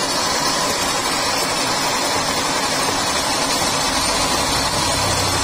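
Milling machine running, a steady, unbroken mechanical noise of its spindle and motor, with no separate cuts or knocks.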